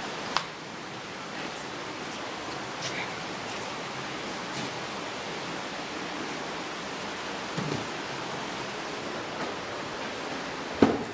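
Steady rushing noise, with a sharp knock just after the start and a louder one near the end.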